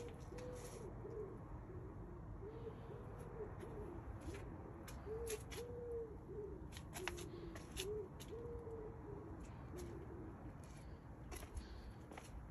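A bird cooing: a long run of low notes, each rising and falling, repeated over and over.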